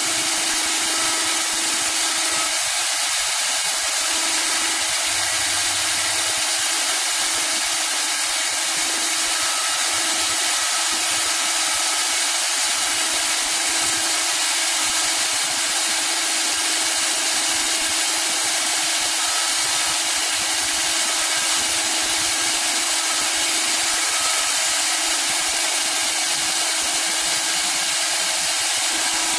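Three-head CNC wood lathe running, its router spindles cutting carved lines and flower patterns into wooden balusters: a steady hiss of cutting wood over the constant hum of the spindle motors.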